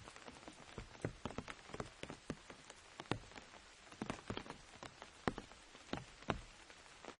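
Rain falling on an umbrella: a steady patter with sharp, irregular drop taps, a few louder heavy drops striking the canopy. The sound cuts off suddenly at the end.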